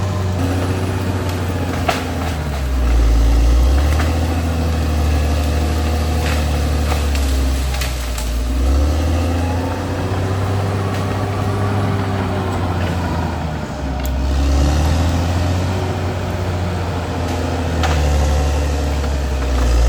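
Caterpillar D6R XL bulldozer's diesel engine working under changing load while clearing, its pitch and loudness rising and falling every few seconds. A few sharp knocks are heard along the way.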